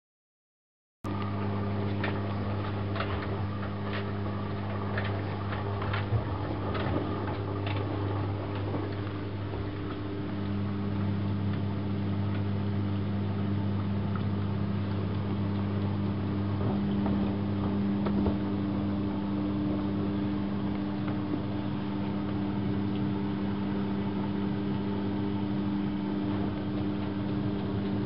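Privileg Classic 30612 front-loading washing machine taking in water for a rinse: a steady electrical hum with water running into the drum, starting suddenly about a second in, with a few light ticks and splashes in the first several seconds.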